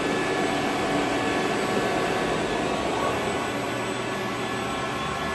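Steady whirring drone of running machinery, with a few faint steady high tones held throughout.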